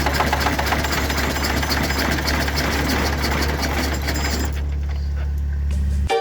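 IH 3588 tractor's DT-466 six-cylinder diesel running with a steady, rapid clatter over a low hum. It runs a touch rough with a slight knock, which the owner traces to a dropped valve.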